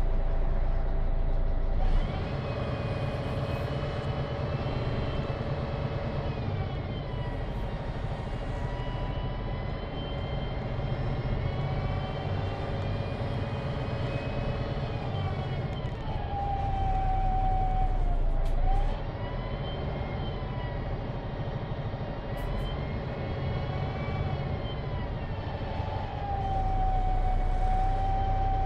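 MAN NG313 bus under way, heard inside the passenger cabin: the MAN D2866 LUH24 diesel drones steadily while a driveline whine from the Voith D864.3E automatic gearbox rises and falls in pitch with road speed. The loudness drops suddenly about two seconds in and again a little past halfway, and rises near the end.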